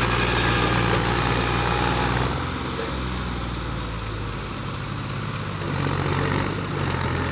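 Mahindra 265 tractor's three-cylinder diesel engine running under heavy load as it tries to pull a trolley carrying a full water tank out of deep mud. It eases off a little over two seconds in and picks up again about six seconds in.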